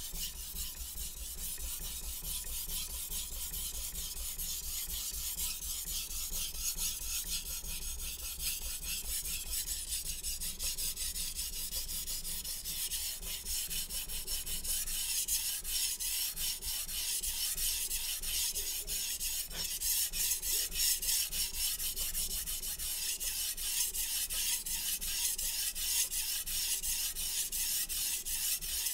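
Steel blade of a Shun chef's knife scraping back and forth on a wet Chosera whetstone in quick continuous strokes, a gritty hiss that grows louder about halfway through. The stone is cutting and taking off fine metal from the edge without loading up.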